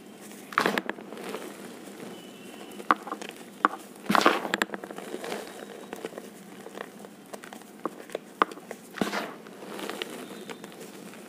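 Hands squeezing and crumbling crunchy reform pieces dusted with cornstarch: dry, powdery rustling dotted with sharp little crackles as bits break. Louder crunches come about half a second in, around four seconds and around nine seconds.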